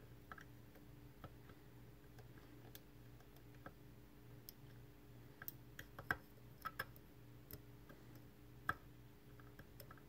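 Faint, irregular small metallic clicks of a lock pick working the pins inside an Assa Twin 6000 lock cylinder under tension, coming in a quick cluster past the middle and once more near the end, over a steady low hum.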